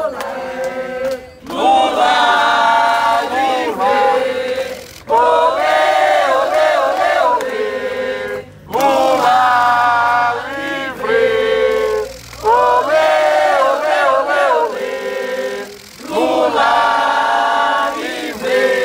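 A small group of protesters singing a chant in unison, led by a man's voice through a megaphone. It comes in about five phrases of some three seconds each, with short breaks for breath between them.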